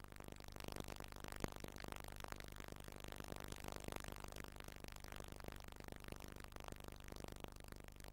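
Faint steady low hum and hiss, with a single sharp click about a second and a half in.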